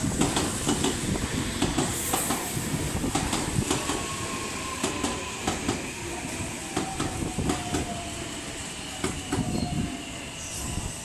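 Meitetsu electric train pulling into the station: cars roll by with wheels clicking over the rail joints, and a faint motor whine falls slowly in pitch as the train slows.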